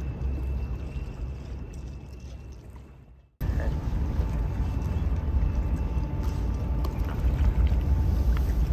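Low, steady seaside rumble of wind on the microphone and water at a seawall. It fades almost to nothing about three seconds in, then cuts straight back in.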